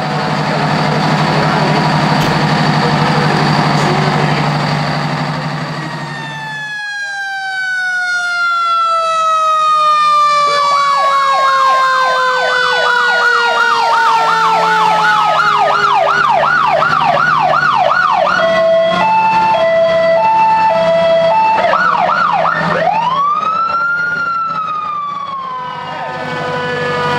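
Fire engine sirens sounding together. A loud steady blast runs for about six seconds and cuts off; then a long whine falls slowly in pitch while an electronic siren warbles rapidly, switches to a two-tone hi-lo, and near the end gives one rising-and-falling wail.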